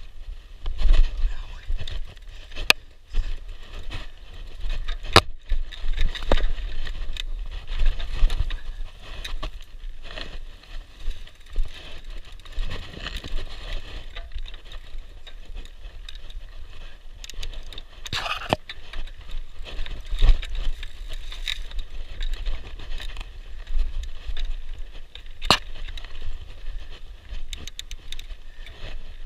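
Mountain bike riding down a dirt singletrack, heard up close from a camera mounted on the bike or rider: a steady low rumble with tyre noise on the dirt, and frequent sharp clicks and rattles as the bike jolts over rough ground.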